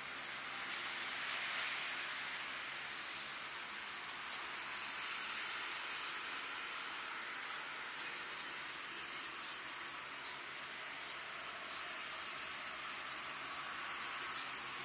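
Steady hiss of distant surf washing onto a sandy beach, swelling gently a second or two in. Faint high ticks come through in the second half.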